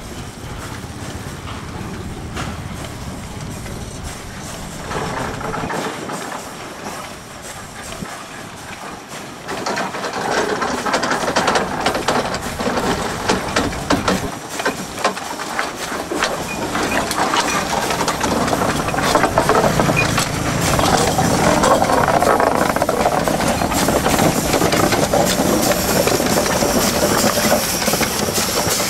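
Narrow-gauge steam locomotive of a Javanese sugar mill moving slowly past close by: steam hissing, with clanks and knocks from its running gear, getting louder from about ten seconds in. A motorcycle engine passes near the start.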